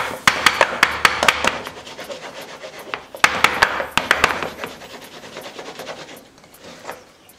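Cake pan full of batter being shaken and knocked down to level the batter: two bursts of rapid knocking, one at the start and another about three seconds in, with quieter rattling between.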